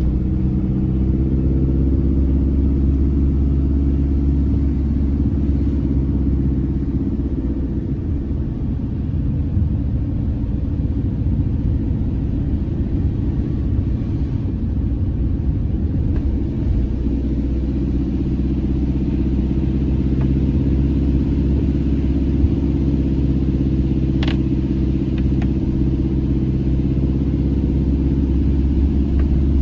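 Campervan driving at a steady pace: a continuous low engine and road drone with steady engine tones. One brief click about three quarters of the way through.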